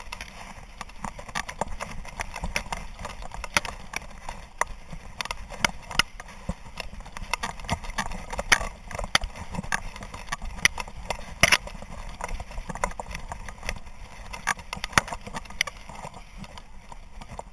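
Dry grass rustling and clicking against a camera on a running dog's back, with the knocks of the dog's footfalls and jostling gear; many sharp irregular clicks over a constant swish.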